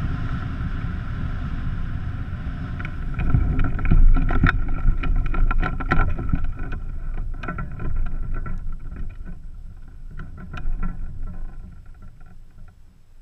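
Wind rushing over the wing-mounted microphone of a powered hang glider gliding in with its engine dead after a spark plug lead came off. From about three seconds in come many sharp knocks and rattles as the pilot touches down on foot on grass, and the rushing fades as the glider slows to a stop.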